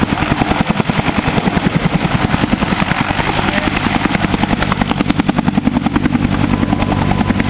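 Bell AH-1 Cobra attack helicopter at takeoff: the main rotor beats fast and loud, about ten blade slaps a second, over the steady rush of its turbine.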